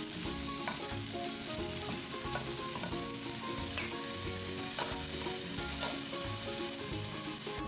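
Red onion and garlic sizzling steadily in oil in a stainless steel frying pan, stirred with a wooden spatula, as they sauté until cooked.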